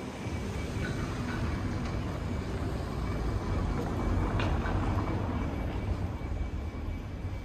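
Low rumble of a passing vehicle, swelling to its loudest about four to five seconds in and then easing off, with one sharp click near the middle.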